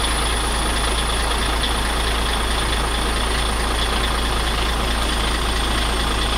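A heavy diesel truck engine idling steadily, with a thin steady high whine over the rumble.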